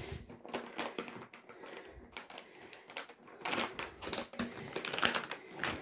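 Cat food being served: a rapid run of small clicks and rattles, busiest about three and a half to five seconds in.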